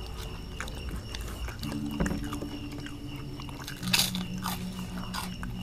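Crunching of fried krupuk crackers being bitten and chewed, a scatter of short crisp cracks, the loudest about four seconds in.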